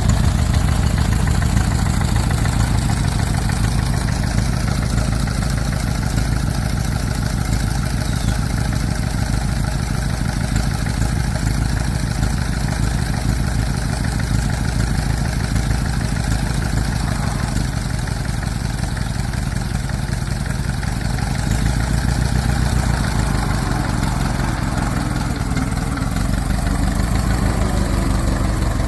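1926 Ford Model T's four-cylinder side-valve engine idling steadily, a low, rapid, even chugging throughout.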